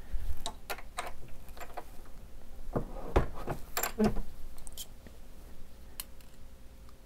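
Scattered light clicks and knocks of metal tools and a brass cartridge being handled at a Hornady single-stage reloading press, the loudest knocks about three seconds in.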